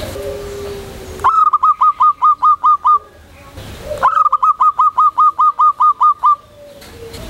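Zebra dove (perkutut) calling loudly: two bursts of quick, evenly repeated cooing notes, about five a second. The first starts about a second in and the second about four seconds in, each lasting around two seconds.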